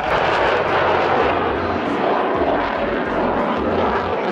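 Military jet flying past at an airshow display, its engine making a loud, steady rushing roar.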